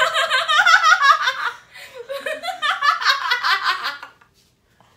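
Teenage girl laughing hard in high-pitched peals for about four seconds, then stopping.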